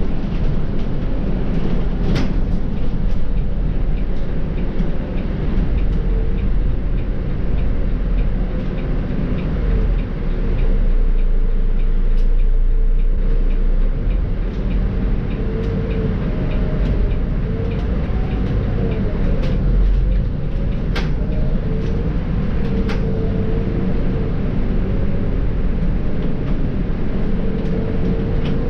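Volvo B7R bus's diesel engine and ZF EcoLife automatic gearbox running as the bus drives, heard on board: a steady drone and road noise, with a whine that rises and falls now and then. A few sharp clicks and rattles cut through, about two seconds in and again past twenty seconds.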